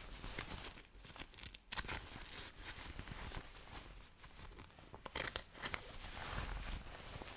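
Cloth rustling and crumpling as fabric is handled and wrapped, with sharper crinkles about two seconds in and again a little after five seconds.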